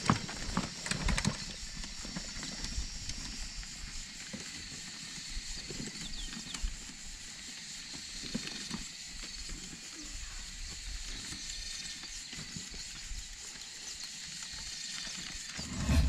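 Countryside ambience: a steady high-pitched hum, with scattered soft knocks and rattles from loaded touring bicycles moving along a rough dirt track, and a burst of louder knocks about a second in.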